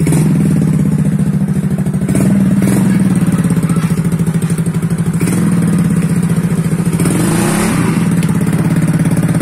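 Yamaha Mio scooter's single-cylinder four-stroke engine running in a homemade mini vehicle. It holds a mostly steady speed, with its pitch dipping and rising again about seven to eight seconds in.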